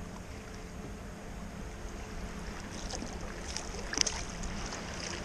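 Water splashing as a small bream thrashes at the surface and is scooped into a landing net. The splashes start about three seconds in, the loudest comes about four seconds in, and steady wind noise runs underneath.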